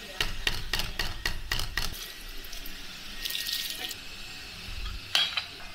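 A quick run of about seven knocks, about four a second, on a wooden chopping block. Then a short splash of liquid about three seconds in, and a single sharp clink about five seconds in.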